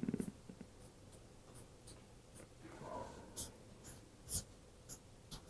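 Marker pen drawing on a paper sheet: faint scratching strokes, with a run of short sharp ticks about every half second in the second half as the tip meets the paper.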